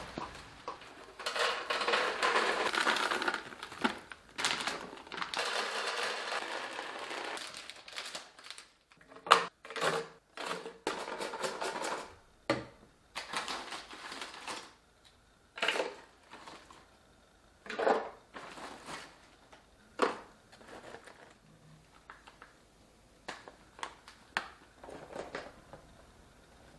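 Rustling and crinkling of food packaging for several seconds, then a series of separate clicks and knocks of plastic containers and lids being handled and set down.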